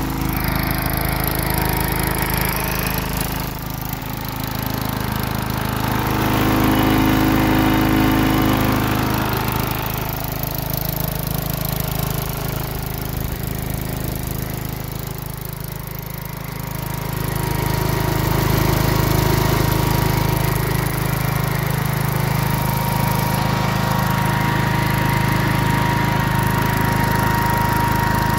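1975 Gravely Professional 5460 walk-behind tractor's engine running, its speed sagging and picking back up a couple of times. A steady thin whine joins in over the second half. The tractor is running again after many years of sitting.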